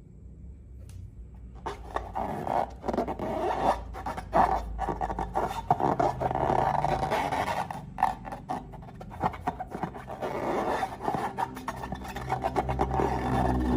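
Slime being squished and worked by hand: a dense, crackly, sticky rubbing and scraping that starts about two seconds in and keeps going.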